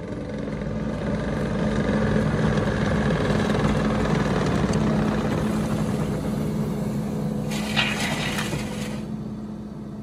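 Diesel engine of a Kubota compact track loader running steadily, swelling in over the first couple of seconds and easing off toward the end. About eight seconds in there is a short crackling scrape as the winch's ground spades dig into the soil.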